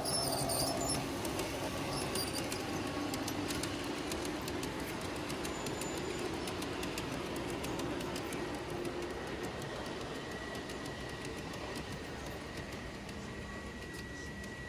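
Model trains rolling past on layout track: a steady rumble of wheels on rails with many small clicks over the rail joints. A thin steady whine joins about ten seconds in.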